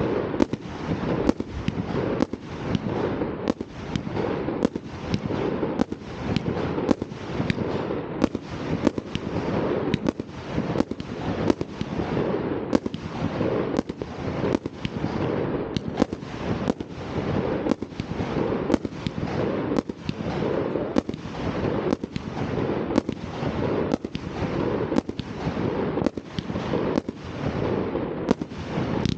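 Fireworks going off in a steady barrage: sharp bangs about one a second, each followed by dense crackling.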